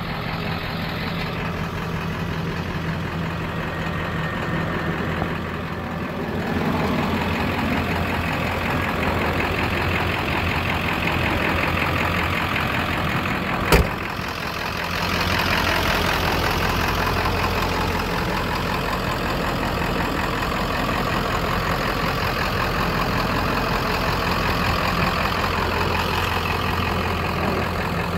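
Ford 7.3 Powerstroke turbo-diesel V8 of a 1996 F-250 idling steadily, with one sharp knock about halfway through.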